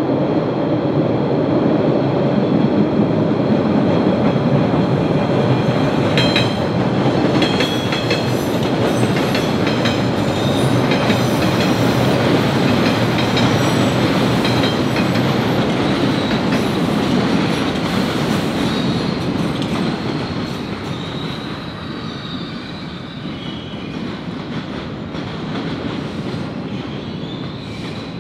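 MBTA subway train running along the rails with a steady rumble, a run of wheel clicks over rail joints in the middle, and a high wheel squeal. The sound fades over the last several seconds as the train moves away.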